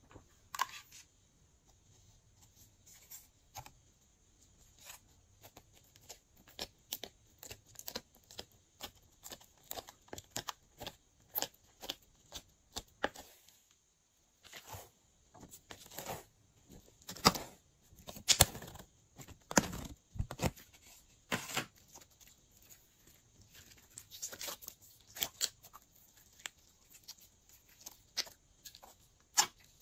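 Glossy slime being stretched, pulled apart and squeezed by hand, making irregular sticky clicks, pops and soft tearing sounds, with a brief pause about halfway.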